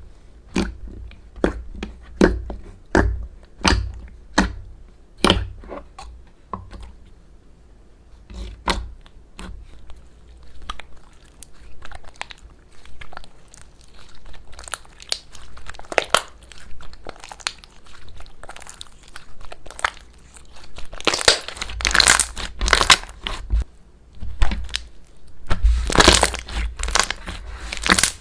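Slime being squeezed and stretched by hand, giving sharp separate pops at first, then dense crackling stretches about two-thirds of the way in and again near the end.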